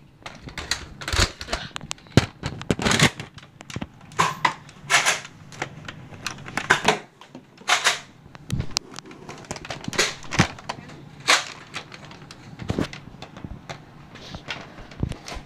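Irregular clicks, knocks and short rustling bursts from someone moving about and handling the phone, roughly one burst every second or two.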